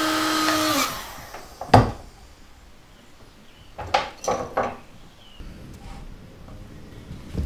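A small electric machine's motor hums and hisses, then is switched off about a second in and winds down. A sharp knock follows, then a few quick clatters of tools being picked up and put down on a wooden workbench.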